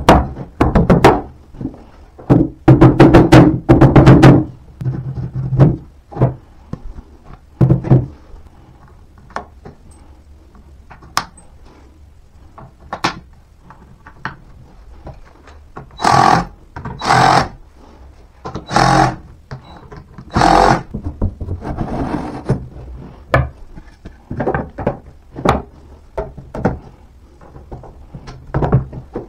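Mallet knocking chipboard furniture panels and fittings together, with a quick run of blows about three seconds in, then scattered knocks. Several louder knocks and scrapes of the panels being handled come between about 16 and 21 seconds in.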